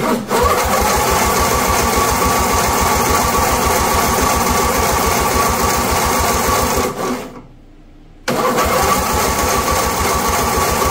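Electric starter cranking the Lawn Chief tractor's Briggs & Stratton engine in two long runs with a short break about seven seconds in: a steady starter whine over rapid, even compression pulses, and the engine never catches. It is being cranked so the fuel pump can fill the carburetor float bowl.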